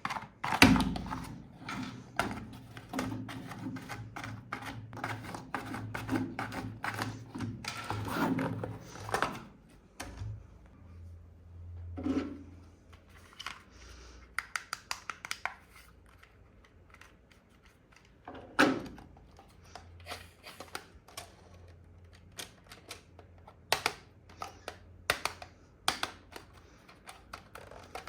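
Hands handling RC toy vehicles and their packaging: a long run of quick, irregular clicks and knocks of hard plastic, with a low steady hum under the first third.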